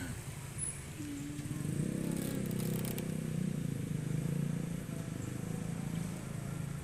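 A low, steady engine hum that comes in about two seconds in and runs on unbroken, after a brief low tone about a second in.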